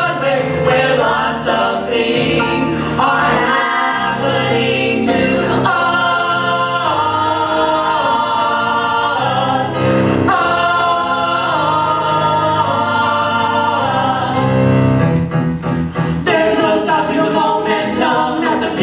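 A small group of men and women singing a musical-theatre number live in close harmony, holding long sustained chords through the middle.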